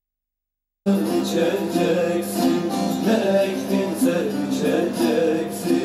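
Plucked string instrument music: a melody over a steady low drone note, starting suddenly out of silence about a second in.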